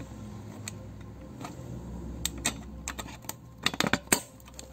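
Plastic clicks and snaps of a CPU cooler's push-pin fasteners being pressed down and locked into the motherboard. The clicks are scattered, with a quick run of louder ones near the end.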